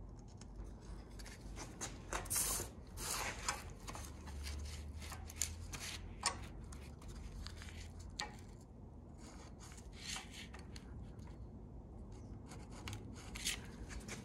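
Marker scratching lines onto poster board along the edge of a square, in short irregular strokes, with the square and paper shifted and rubbed on the steel table between strokes.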